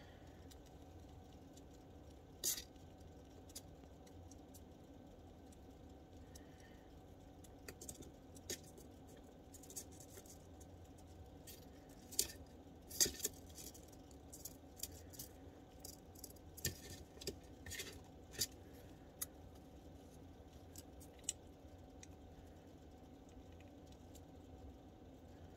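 Scattered soft clicks and ticks of a five-week-old red squirrel kit feeding from a syringe nipple, over a steady low hum.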